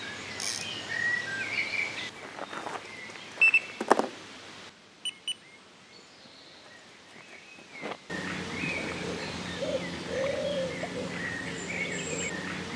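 Small birds chirping and calling, with a few sharp knocks about three and a half to four seconds in. The background drops quieter for a few seconds in the middle, then the birdsong returns.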